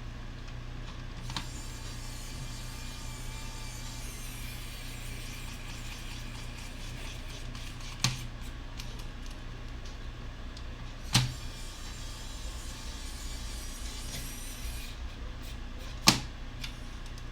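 Sharp knocks of a screwdriver and screws being handled on a laptop's case while its bottom cover is screwed back on: three distinct knocks a few seconds apart, over a steady low hum.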